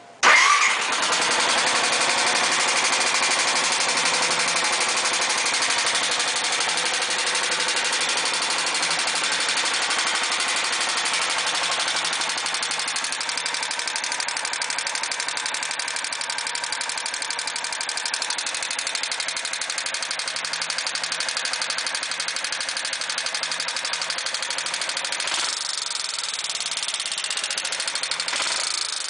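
Suzuki GZ250 single-cylinder four-stroke engine starting just after the beginning, then idling steadily with a fast, even ticking. The new owner cannot tell whether the tick is normal or a fault, at 10,000 miles.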